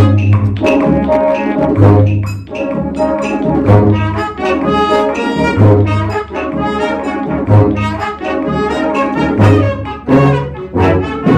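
Wind band playing, brass to the fore, over a low bass note that sounds about every two seconds; the double bass is played along with the band to demonstrate.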